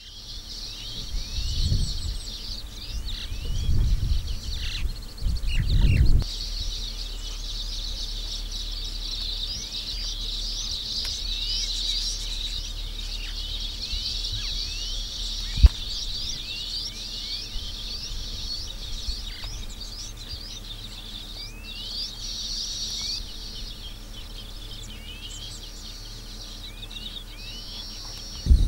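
Many birds chirping in a dense, continuous chorus of short, quick high notes. A few low thuds come in the first six seconds, and a single sharp click about halfway through.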